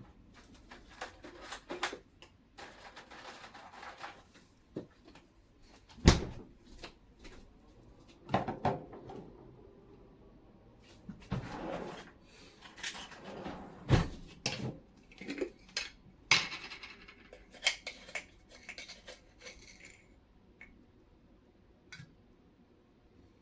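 Kitchen handling sounds: dishes, utensils and containers being set down and moved, giving scattered knocks and clinks. The loudest knocks come about six and fourteen seconds in, with short stretches of rustling between them.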